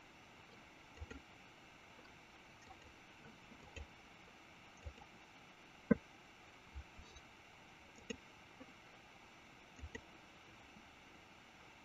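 Computer mouse clicks, scattered and irregular, the loudest about six seconds in, over a faint steady microphone hiss.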